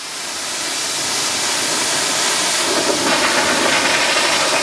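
Pressure washer jet spraying water onto a muddy pickup truck's body, a steady loud hiss that swells in over the first second.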